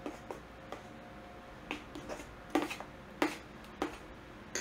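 A spoon stirring soup in a stainless steel mixing bowl, clinking against the bowl in a run of irregular knocks, louder ones in the second half, with the bowl ringing faintly after them.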